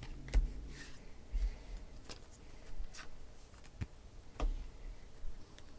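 Panini Prizm trading cards being dealt by hand onto stacks on a table: about ten irregular light taps and clicks as cards land on the piles.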